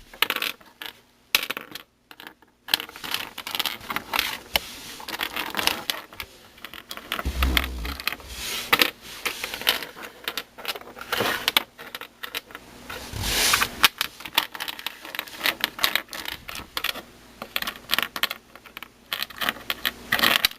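Loose plastic pieces of a disassembled Meffert's 4x4 puzzle cube clicking and clattering as they are rummaged through by hand, with a couple of dull bumps partway through.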